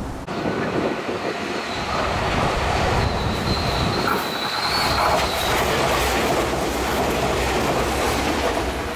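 Meitetsu 9500 series electric train running through the station without stopping, the noise of its wheels on the rails building as it comes close and passes. A thin high whine is heard for about two seconds in the middle.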